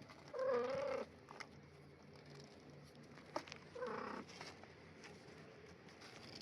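A cat meowing twice: a wavering meow about half a second in, the loudest sound here, and a shorter one around four seconds, with a sharp click just before the second.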